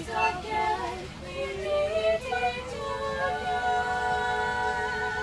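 Girls singing a tune, moving through a few short notes and then holding one long note from about three seconds in.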